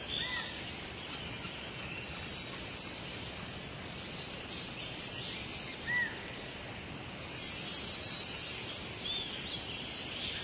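Wild birds calling over a steady noisy background: a few short, single chirps spread out, and one longer high-pitched call about three quarters of the way through, the loudest sound.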